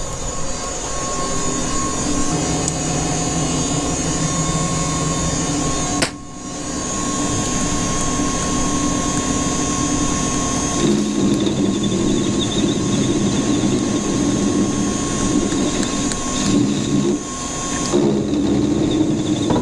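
Metal lathe running steadily, a machine hum with steady whining tones. The sound drops out briefly about six seconds in and gets heavier from about eleven seconds.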